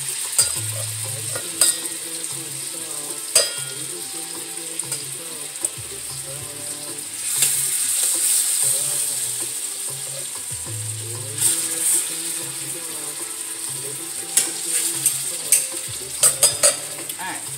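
Curry-seasoned chicken thighs frying skin side down in hot oil in a stainless steel skillet: a steady sizzle that swells for a couple of seconds about halfway through. Sharp clicks of a utensil against the pan come every few seconds as the pieces are set in place, with a quick run of them near the end.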